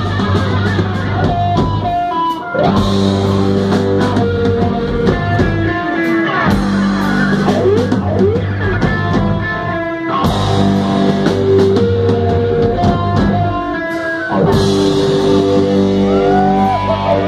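Live rock band playing an instrumental passage: electric guitar holding notes and bending them over a drum kit, with short breaks a few times between phrases.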